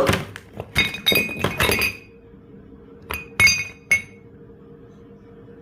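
Hard objects clinking together with a short bright ring, like glass or metal knocked against glass: a quick run of clinks over the first two seconds, then three more spaced clinks about a second later, followed by a faint steady hum.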